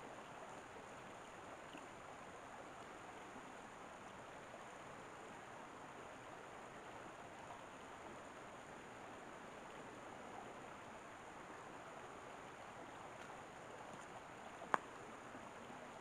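Shallow rocky stream flowing over stones, a faint steady babble of water. A single sharp click near the end.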